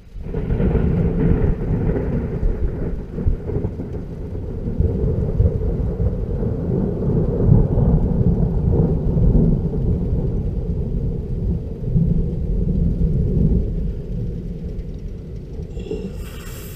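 Thunder from a lightning strike about 680 m away: it starts suddenly, then a long low rumble rolls on for well over ten seconds and slowly fades.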